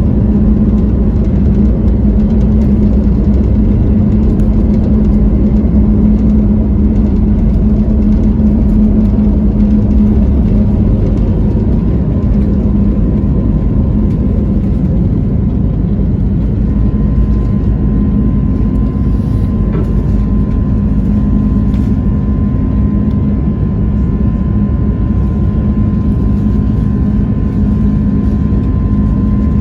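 Airbus A321neo's jet engines running steadily, heard from inside the passenger cabin as a loud, even rushing noise with a low hum and a thin steady high tone.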